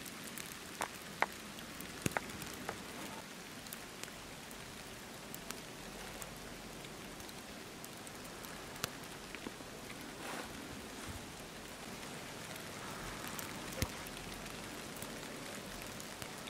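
Heavy snowfall: a faint, even hiss with scattered light ticks like rain pattering.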